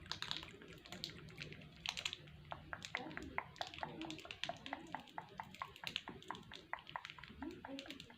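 A run of quick, light, irregular clicks, several a second, with a faint voice underneath.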